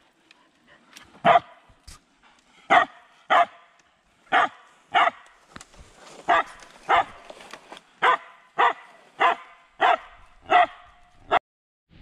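Small dog barking sharply over and over, about a dozen barks at an even pace, into a hollow among a tree's roots where some animal is living.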